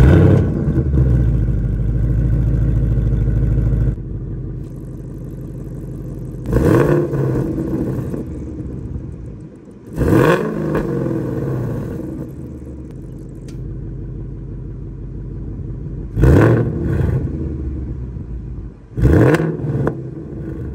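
Ford Mustang Mach 1's 5.0-litre V8 starting up through a Steeda X-pipe and the factory active exhaust. It catches with a loud flare, holds a raised idle for about four seconds, settles to idle, then is revved four times in short blips, the last ones with the exhaust valves in normal mode. The X-pipe gives a raspier, higher-pitched exhaust note than an H-pipe.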